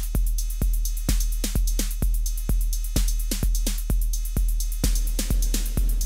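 Roland TR-8 drum machine playing a steady four-on-the-floor beat, about two kicks a second. Each deep kick has a long low tail, with hi-hat ticks between the kicks. The drums run through an effects pedal under test, and the sound turns a little denser and noisier near the end.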